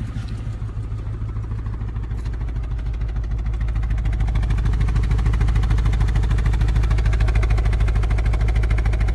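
2015 Ford Mustang GT's 5.0-litre Coyote V8 idling extremely rough, with the check engine light on and the gauges showing an air-fuel ratio of about 20 and vacuum not where it should be. It grows louder over the first few seconds, then holds steady.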